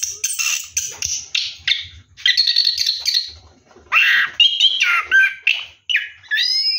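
Orange-headed thrush (anis kembang) singing loudly in bursts of rapid, varied phrases with short pauses between them.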